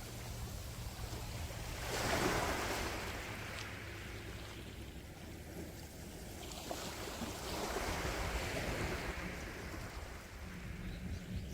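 Calm sea waves washing in: a rushing wash swells about two seconds in and again around eight seconds, over a steady low rumble.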